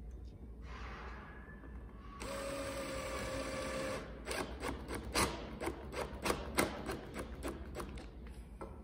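Cordless drill-driver with a Posi 1 bit driving a small self-tapping screw into a valance bracket. The motor spins up, runs steadily for a couple of seconds, then gives way to a run of sharp clicks, about three a second.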